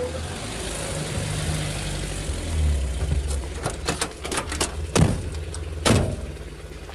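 Car engine running at idle, then a few sharp clicks and two car doors slamming about a second apart, a radio-play sound effect of a car pulling up and its occupants getting out.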